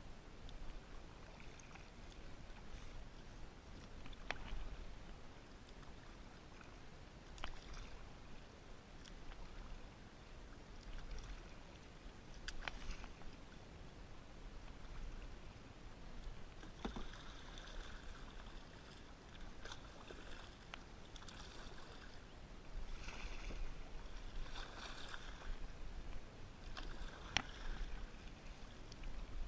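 Kayak paddle strokes: the blades dip, splash and drip water, louder and more frequent from about halfway through, with a few sharp clicks.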